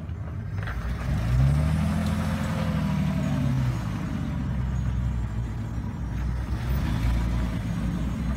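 Engine of a flat-fender Willys Jeep pulling up a steep rock slope under load, revving up about a second in, holding for a couple of seconds, easing off, then rising again near the end.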